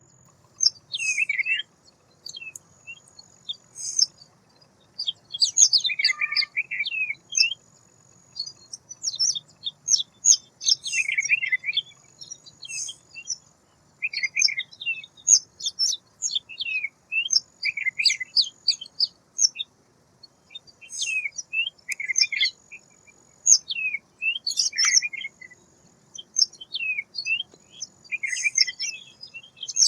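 White wagtail calling and twittering: quick, high chirps and short falling notes, repeated in brief phrases every second or two.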